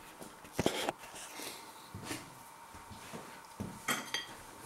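A few knocks and clatters of someone moving about at a kitchen counter and handling a plate, with a short ringing clink of cutlery on the china plate near the end, over a faint steady tone.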